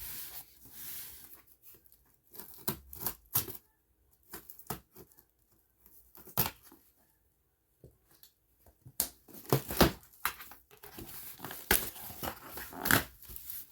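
A cardboard box being opened by hand: scattered rips and rustles, a lull of about two seconds midway, then busier tearing and crinkling of packing material near the end.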